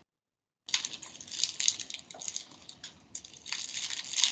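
Dead silence for under a second, then a run of light clicking and rustling handling noise close to the microphone.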